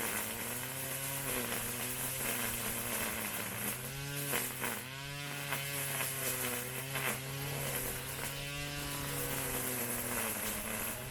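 Small engine of a grass trimmer (brush cutter) running, its pitch rising and falling as it is revved up a few times.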